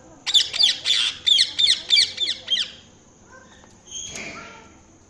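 Indian ringneck parrot giving a rapid run of about ten shrill, short falling squawks, about four a second, then a single weaker call about four seconds in.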